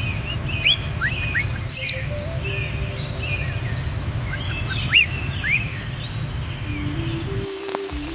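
Several small birds chirping and calling in short, quick notes that sweep up and down, over a steady low rumble that cuts out briefly near the end.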